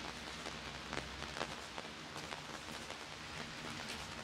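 Steady rain falling on wet cobblestones and pavement: an even hiss dotted with scattered drop ticks.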